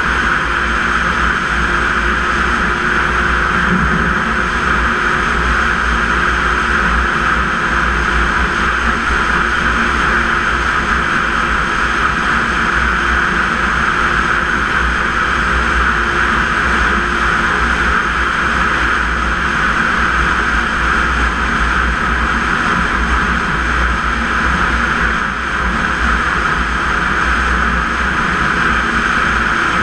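Snowmobile engine running under way at a steady, even pitch.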